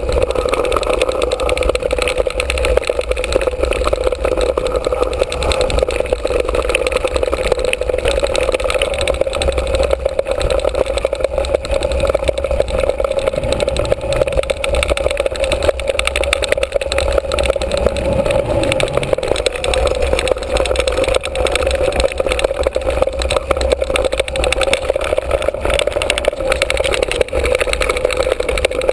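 Mountain bike riding fast down a rough dirt trail, heard from a camera mounted on the bike: a steady rush of wind and tyre noise with constant rapid rattling of the bike and mount over the bumps.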